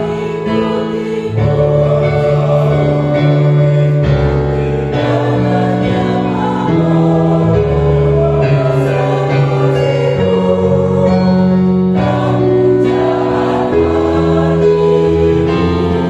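Mixed choir of women and men singing a hymn in several parts, accompanied on a keyboard, moving in long held notes from chord to chord.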